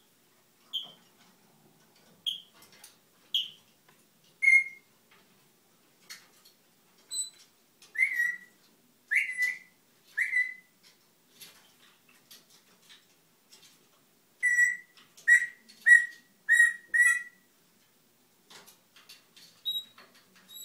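Brown-headed parrot whistling a string of short chirps: higher notes at first, then lower ones, a group of three and later a quick run of five about half a second apart.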